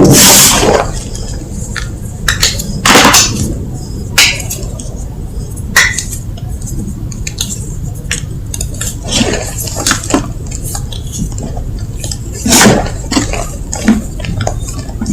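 Gym chalk being crunched and crushed, giving crisp, irregular crackles with a few louder crunches every second or few.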